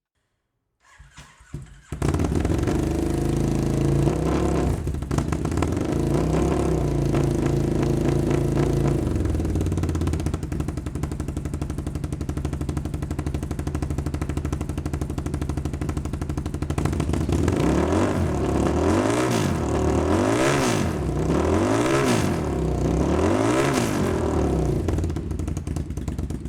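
Langen Lightspeed two-stroke motorcycle engine starting about two seconds in, then running at an unsteady idle. Over the last several seconds it is blipped repeatedly, the revs rising and falling again and again, before it cuts off at the end.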